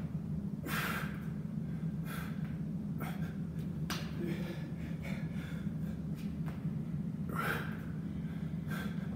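A man breathing hard from exertion during burpee-style reps, with short, sharp exhales and gasps; the strongest come about a second in and near the end. A steady low hum runs underneath.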